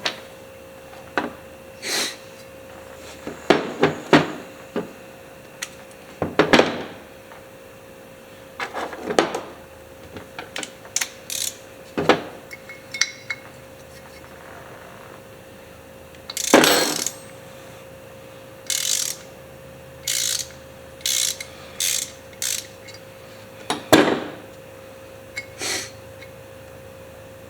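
Metal carburetor parts and hand tools being handled: irregular clicks, clinks and short scrapes, with a cluster of quick scrapes about two-thirds of the way through.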